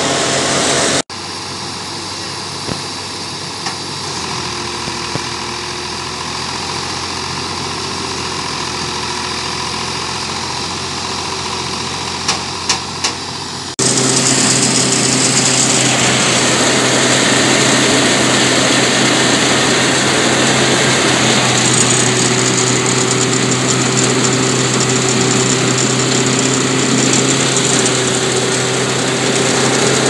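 Rice thresher running steadily, with the drone of the engine that drives it and the rush of straw and grain passing through. The sound drops abruptly about a second in and comes back louder about halfway through, with a few sharp clicks just before.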